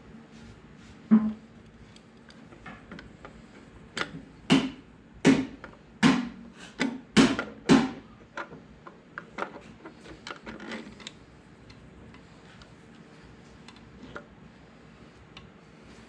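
Sharp clicks and knocks of a carburetor and its linkage rods being handled and fitted back onto a garden tractor engine. There is one loud knock about a second in, then a quick run of about eight loud knocks in the middle, then lighter ticking that dies away.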